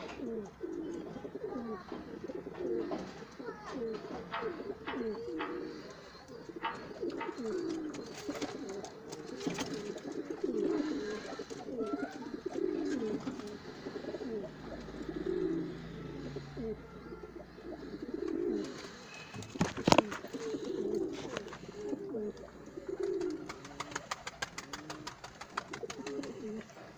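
Domestic pigeons cooing over and over, several birds overlapping, with scattered clicks and one loud sharp knock about twenty seconds in.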